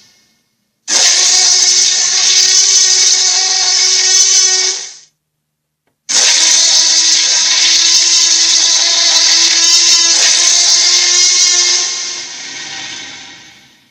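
Electronic toy playing a sound effect through its small speaker, twice: a steady noisy sound with fixed tones about four seconds long, then again for about six seconds, fading out at the end.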